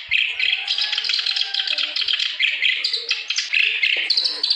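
Kerak basi (clamorous reed warbler) singing a continuous, rapid song of varied chattering notes, with no pauses. This is the bird in full, vigorous song (gacor).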